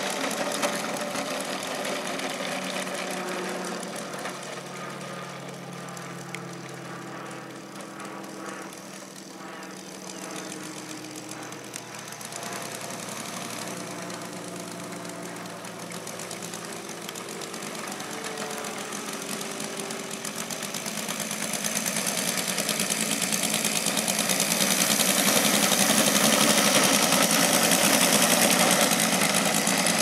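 Saito FG-60R3 three-cylinder 60cc petrol radial engine of a large model plane running at low throttle while it taxis, its pitch shifting up and down. It grows louder about two-thirds of the way through.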